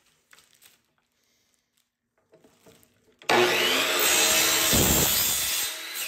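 A few faint handling clicks, then an electric power saw starts suddenly about three seconds in and runs loudly through a cut with a steady whine. Near the end the blade spins down, its whine falling in pitch as it fades.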